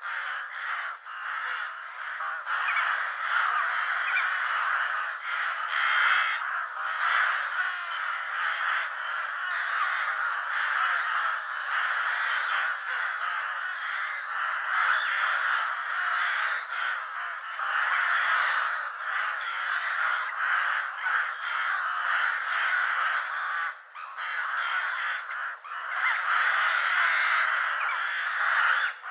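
A flock of crows cawing, many harsh caws overlapping into an almost unbroken chorus, with brief lulls about a second in and again a few seconds before the end.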